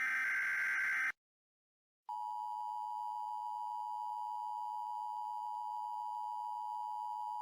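Emergency Alert System tones: the last burst of a SAME header's data screech ends about a second in. After a second of silence comes the steady two-tone attention signal, a dual tone just under 1 kHz (853 and 960 Hz), announcing an alert.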